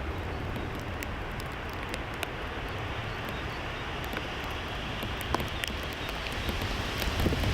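Steady rushing noise of a jet airliner in flight, with a low rumble underneath and a few faint clicks.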